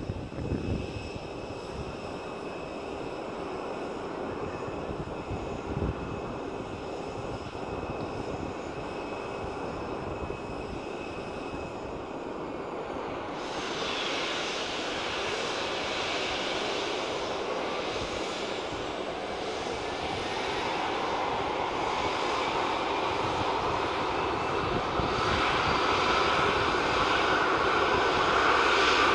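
Airbus A320neo jet engine starting during pushback. A steady whine gives way, about halfway through, to a growing rush with a thin whine rising slowly in pitch as the engine spools up, louder toward the end.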